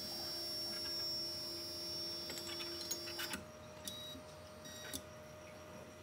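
Red Sea ReefBot's stepper motor whining steadily as it drives the syringe carriage along its rail, stopping with a click a little past halfway. A few faint clicks follow over a faint steady hum.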